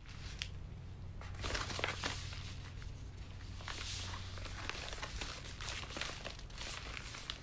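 Crinkling and rustling of a yellow padded mailer as hands press, rub and turn it, with many small irregular crackles and ticks. A steady low hum runs underneath.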